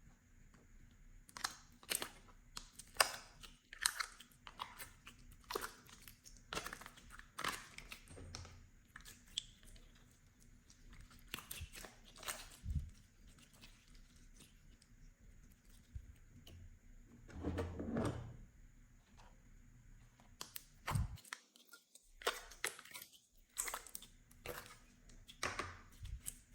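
Slime being mixed and squeezed by hand: irregular sticky crackles and clicks, with one longer squish a little past halfway.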